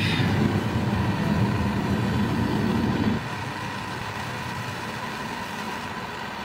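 Propane hand torch burning with a steady low rushing sound; about three seconds in it drops abruptly to a quieter steady hiss.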